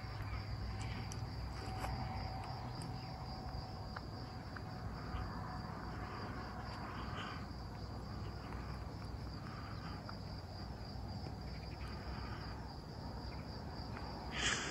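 Crickets chirping in a steady, even high trill.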